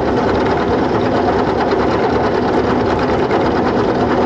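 Small hobby milling machine taking a cut in a hard, poorly machinable iron T-nut blank with a cobalt end mill, the cutter grinding steadily through the metal over the running motor's hum.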